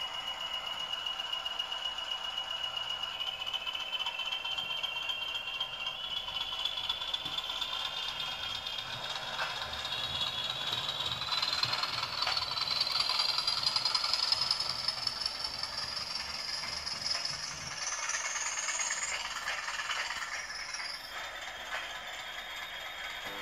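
Model Class 20 diesel locomotive running on a model railway layout: its small electric motor whines, the pitch climbing steadily as it speeds up, then falling away sharply about four-fifths of the way through. Under it the wheels rattle and click over the rail joints and points.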